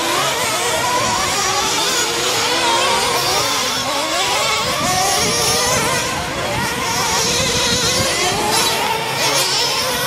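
Several radio-controlled racing trucks running on a dirt track. Their motors overlap, each rising and falling in pitch as the throttle is worked.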